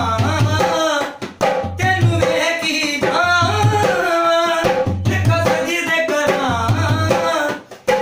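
Newly made dholak being tone-checked: its deep bass-head strokes keep a rhythm under a male voice singing a qawwali-style melody. The music breaks briefly twice, once about a second in and once near the end.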